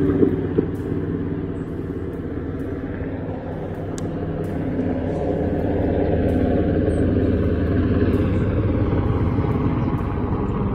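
Helicopter flying nearby: a steady drone of rotor and engine, growing somewhat louder past the middle.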